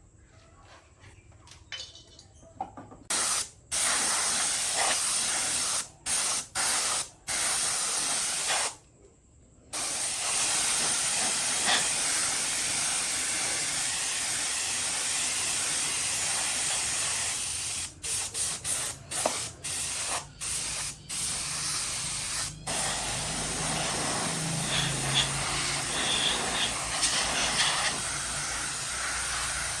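Compressed-air spray gun hissing, switched on and off in bursts as the trigger is pulled and released: a few short bursts early, a long steady spray, a run of quick stop-start bursts in the middle, then steady spraying again. A low hum joins it for the last several seconds.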